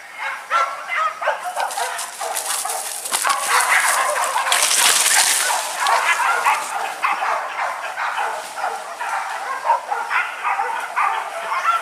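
Hunting dogs barking and yelping over and over in quick succession. A brief rustling hiss comes about four to five seconds in.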